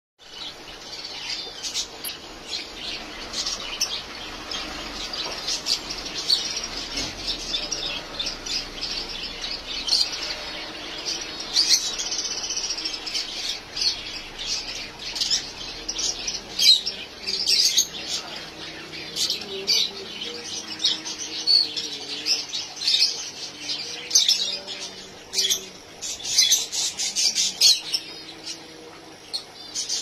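Rosy-faced lovebirds chattering: a dense, unbroken run of short, high chirps and squawks.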